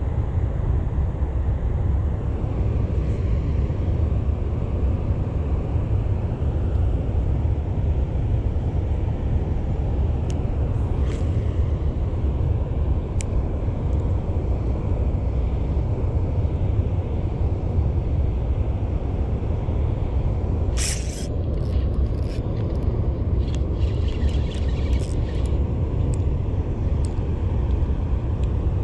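Steady low rumble of water rushing out of the dam into the spillway tailwater. Scattered sharp clicks and rattles come about ten seconds in and again past twenty seconds.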